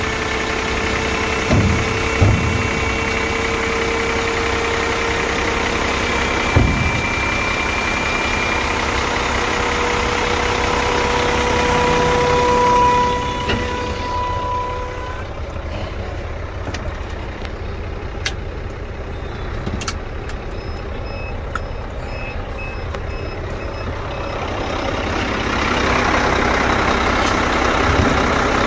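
Scania P114 dump truck's diesel engine running with a steady whine that rises slightly in pitch. About halfway through it turns duller and quieter, and a short electronic beep repeats evenly for a few seconds. Near the end it grows louder again.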